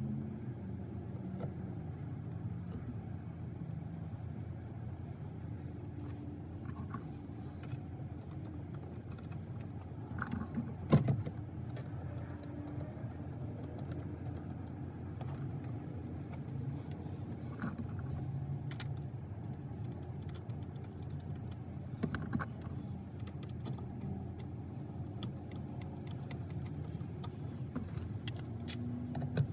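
Scattered knocks and clicks of an aftermarket double-DIN stereo being pressed and shifted into the plastic dash trim, the loudest knock about eleven seconds in, over a steady low rumble.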